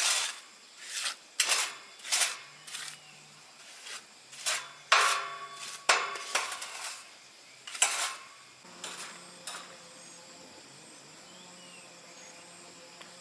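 Metal clinking and scraping in irregular strikes, one or two a second, a few ringing briefly. The strikes stop about nine and a half seconds in, leaving a faint steady hum.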